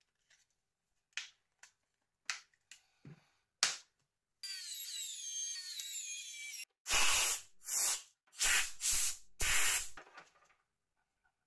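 Small clicks and taps as phone parts are handled during reassembly. Then comes about two seconds of hissing noise with a repeated falling squeak, and five short, loud rushes of air.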